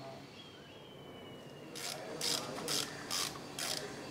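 Ratchet wrench being worked back and forth on motorcycle hardware during an oil service: short clicking strokes, about two a second, starting about two seconds in.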